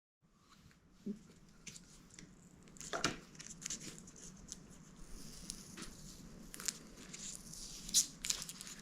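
Faint handling noises of bike assembly: scattered small clicks and taps with soft rustling, the loudest about three seconds in and again near eight seconds.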